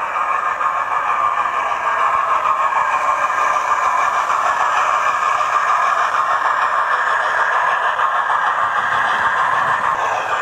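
Hornby A4 Pacific 'Gadwall' OO gauge model steam locomotive with a TTS sound decoder running steadily along the track, its small onboard speaker playing steam locomotive sounds.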